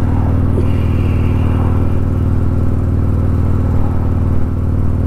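Harley-Davidson Street Glide's Milwaukee-Eight V-twin engine running steadily at an even speed, a deep rumble with no popping or crackling in the recording.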